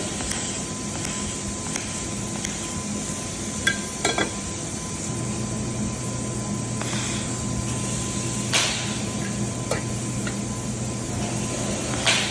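Steady workshop noise with a low hum that comes in about five seconds in, and a few sharp metal knocks.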